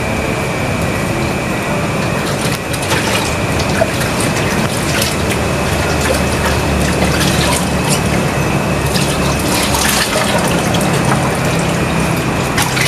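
Marinade boiling hard in a stainless steel saucepan on a gas burner: a steady bubbling, with occasional faint ticks.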